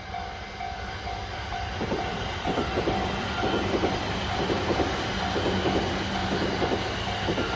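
Level crossing warning bell dinging steadily, about two dings a second. About two seconds in, the wheels of a train hauled by an EF65 electric locomotive start clattering over the rail joints as it passes the crossing. The clatter keeps up after that.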